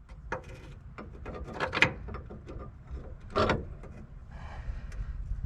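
A few separate metal clinks and knocks as a new sway bar link's top stud is worked into place on a pickup's front suspension, the loudest about two seconds in, over a low steady rumble.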